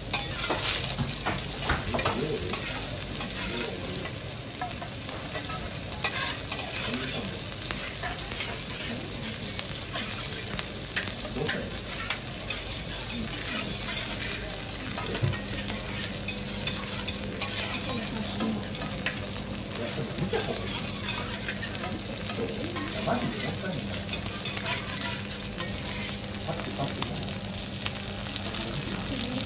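Food sizzling on a teppanyaki iron griddle, with metal spatulas scraping, stirring and tapping against the hot plate in many short clicks.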